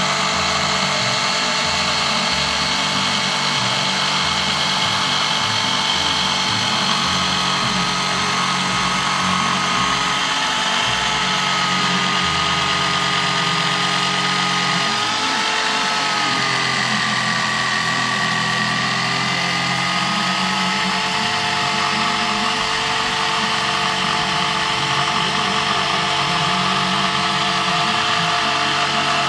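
DeWalt DW333K 701 W jigsaw running at full speed with pendulum action off, its blade cutting a tight curve through a 45 mm construction timber beam, along and across the grain. Steady motor whine under load, the pitch dipping for a few seconds about halfway through.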